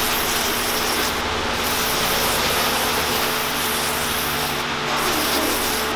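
Aerosol can of foam-type carbon cleaner spraying continuously through its straw nozzle, a steady unbroken hiss as the foam goes onto a piece of cardboard.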